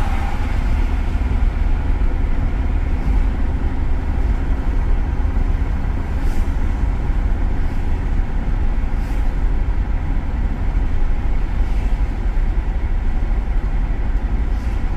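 Steady low rumble of a 2001 VW Beetle's 1.8-litre turbo four-cylinder engine and tyres while the car is driven, heard from inside the cabin. The engine is misfiring, mostly on cylinders 1 and 2, and losing power.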